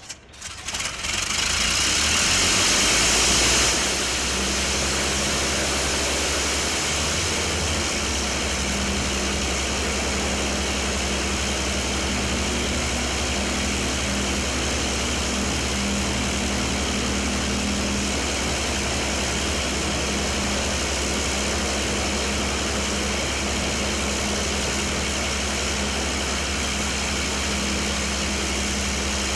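Fairey Firefly's Rolls-Royce Griffon V12 engine starting up. It fires raggedly at first, runs louder for about three seconds, then settles into a steady idle.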